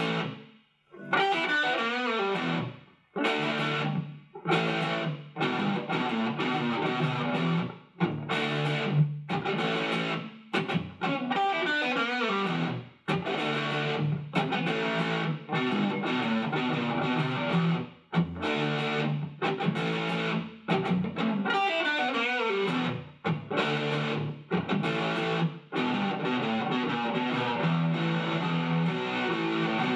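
Shelter USA SG-style electric guitar with two humbuckers, played through a small combo amp: chords and riffs that stop short between phrases, with a few sliding notes.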